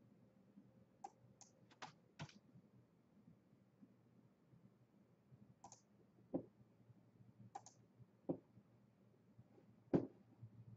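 Quiet clicking from a computer mouse and keyboard: four quick clicks near the start, then scattered clicks and a few duller knocks, the loudest near the end.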